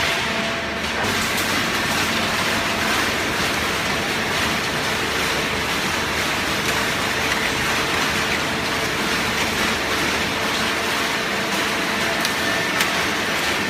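Hydraulic shredded-paper baling press running: steady machine noise with a constant hum.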